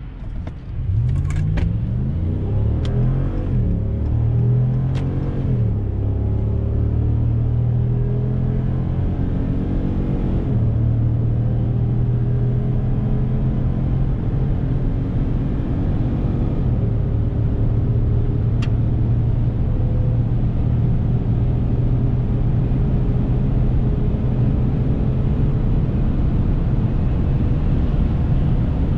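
Dodge Ram 1500's 5.7-litre Hemi V8 under hard acceleration. The engine note jumps up about a second in and climbs for several seconds, then settles into a steady drone with a shift in pitch about ten seconds in, over road noise.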